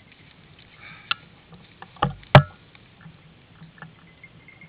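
Branches and dry twigs knocking and snapping in woodland undergrowth over faint rustling, with a few sharp knocks, the loudest about two and a half seconds in.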